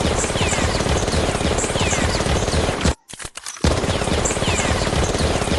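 Rapid automatic gunfire in two long bursts, with a brief break about three seconds in.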